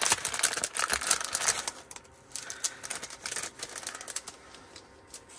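Rapid light clicks and crinkles of a packet being handled and opened, thinning out to a few faint clicks after about two seconds.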